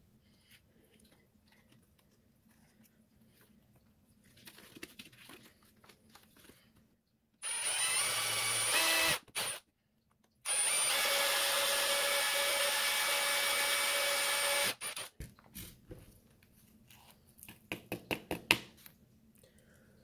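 Milwaukee cordless drill with a small bit drilling holes through the thin metal spade terminals of a door chime module's circuit board: a short run of about two seconds that stops and starts, then a steady run of about four seconds. A few light clicks follow near the end.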